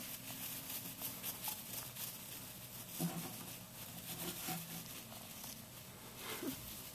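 Russian dwarf hamster scrabbling about its cage: light rustling and scratching in the bedding, made of many small quick clicks, with a few brief low tones, the loudest about three seconds in.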